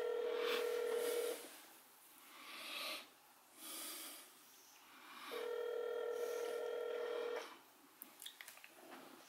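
Telephone ringback tone heard over the phone line: a steady ring ending about a second in, then a second ring of about two seconds after a four-second gap, the transferred call ringing through unanswered on the way to voicemail.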